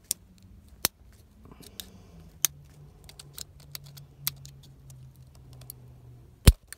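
Nail clippers snipping at the plastic of a battery blister pack: a string of sharp clicks at irregular intervals, the loudest near the end.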